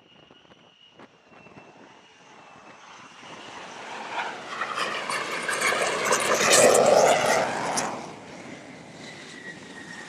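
F-35C Lightning II jet engine coming in on approach: a high whine, then a rising roar that peaks about seven seconds in and falls off sharply about a second later.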